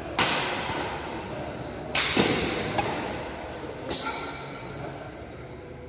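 Badminton rally: about four sharp racket smacks on the shuttlecock roughly a second apart, the last about four seconds in, with shoes squeaking on the court floor, echoing in a sports hall.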